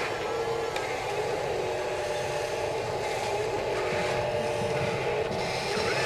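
Steady whirring whine of the small electric motors and gearboxes of a radio-controlled wheel loader and excavator as they drive and move in sand, with several whining tones that break off and come back.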